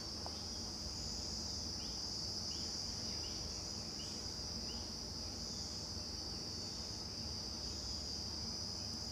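Crickets trilling steadily in a continuous high chorus that swells and fades gently, with a few faint short rising chirps repeating about every 0.7 s in the first half.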